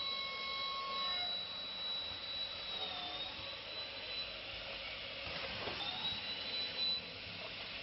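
MDTP-400 automatic aluminium cleat drilling, tapping, punching and cutting machine running: a steady mechanical rushing noise with a thin high whine that dips briefly about three seconds in and again near six seconds.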